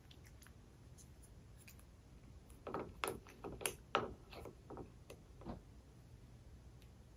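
A quick run of small clicks and knocks, densest between about three and four seconds in. They come from a plastic syringe being handled in a plastic bowl of saline while it is refilled to flush a cat's kidney catheter.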